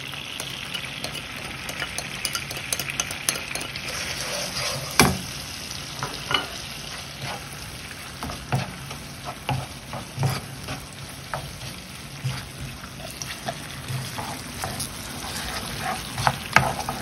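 Cherry tomato, olive and garlic sauce sizzling in olive oil in a frying pan, with breadcrumbs being stirred in by a wooden spoon that scrapes and knocks against the pan now and then; the loudest knock comes about five seconds in.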